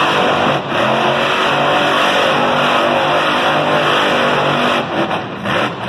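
Monster truck engine running loud and revving up and down as the truck spins in tight circles on the dirt, easing off about five seconds in.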